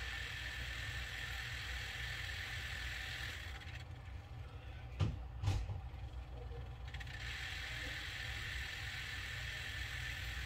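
Gauge stepper motors of a Volvo VNL truck instrument cluster whirring as the needles sweep up during the cluster's gauge test. They fall silent for a few seconds with two sharp clicks about five seconds in, then whir again as the needles sweep back down. A steady low hum runs underneath.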